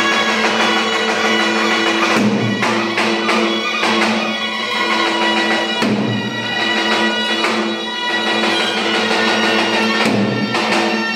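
Live Albanian folk dance music: a wind instrument plays a reedy melody over held drone notes, with occasional heavy strikes on a large bass drum (lodër).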